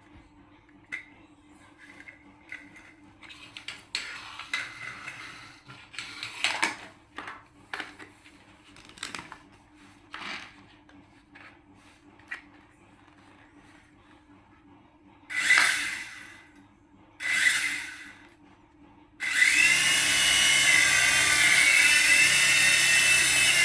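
Small electric motor of an RC toy whirring: two short bursts, then a sustained loud run with a wavering pitch, after some light handling clicks and rustles.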